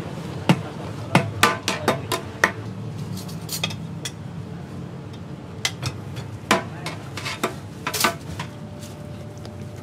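Metal ladle clanking and scraping against a large steel wok while serving fried rice: irregular sharp knocks, several in quick succession in the first couple of seconds, then scattered ones. A steady low background din runs underneath.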